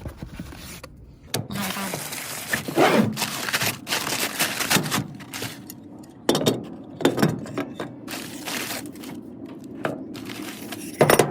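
Cardboard kit box being opened and its packaging handled: irregular crackling and rustling with a few sharp knocks as the parts are moved about.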